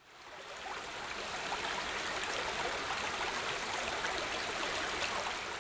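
Shallow stony creek running over rocks, a steady rush and babble of water that fades in over the first second.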